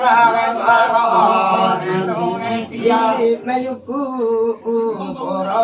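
Male voice chanting a Limbu ritual chant in a wavering, sing-song line, with held notes under it.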